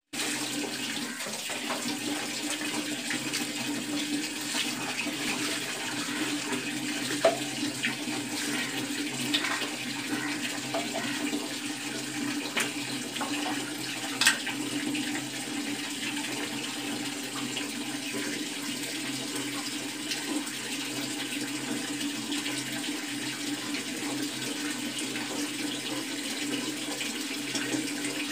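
Steady splashing and running water in a small tiled bathroom, with a few sharp knocks about a third and half of the way through.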